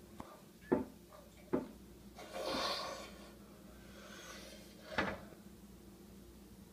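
Household knocks in a kitchen: a sharp knock under a second in, another about a second and a half in, and a third about five seconds in, with a brief rush of noise about two and a half seconds in.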